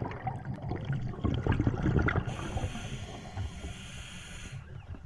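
Scuba diver breathing on a regulator, heard underwater: irregular bubbling from an exhalation, then a steady hiss of air through the regulator on the next breath in, starting about two seconds in and stopping cleanly near the end.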